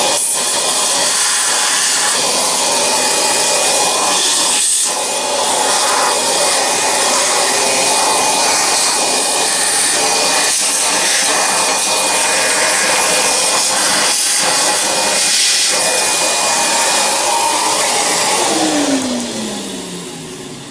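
Vacuum cleaner running steadily as it cleans out dirt, then switched off near the end, its motor winding down in falling pitch.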